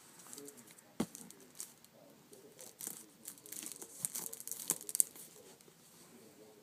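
Crinkling and rustling of something being handled, with a sharp knock about a second in; the rustling is busiest between about three and five seconds in.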